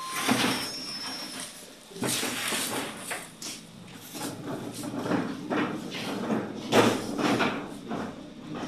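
Dry Brachiaria grass hay rustling and crackling as it is handled and piled, in irregular swishes that are loudest about seven seconds in.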